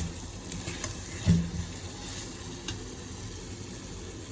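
Chicken pieces in a butter garlic gravy sizzling softly and steadily in a pan, with a few light clicks and one brief, louder knock about a second in.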